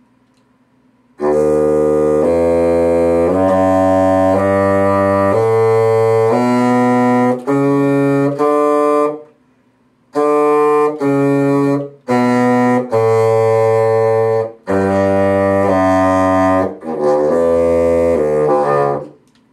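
Bassoon playing a scale, the announced D major first, in separate notes about a second each that quicken towards the end of each run. It stops for about a second near the middle and then starts again.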